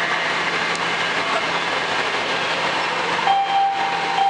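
Washington Metro Red Line train standing at the platform: a steady hiss of the railcars' running equipment, with a single steady tone starting near the end.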